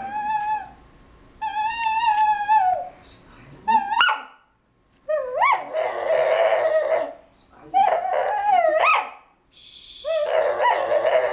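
A small tan-and-white terrier-type dog whining and yowling to beg for a toy. It gives a string of about six high, wavering cries with short gaps between them. Several slide upward in pitch, and the later ones are louder and rougher.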